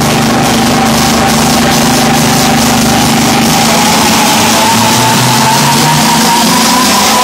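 Very loud electronic dance music from a live DJ set over a club sound system, with held synth tones over heavy bass. In the second half a synth tone slowly rises in pitch, and the deep bass thins out near the end.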